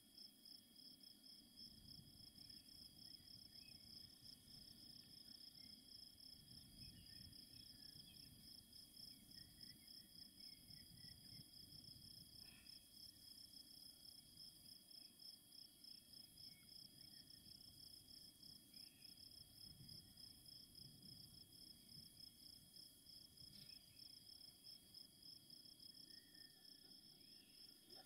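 Faint, steady chirping of crickets in a fast, even pulsing trill, with a few scattered faint bird chirps and a low rumble of wind on the microphone.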